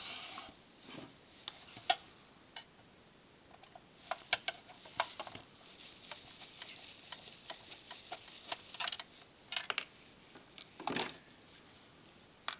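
Faint, scattered clicks and short scrapes at irregular intervals from a screwdriver working on a plastic laser-printer drum cartridge, taking out the screws that hold the wiper blade.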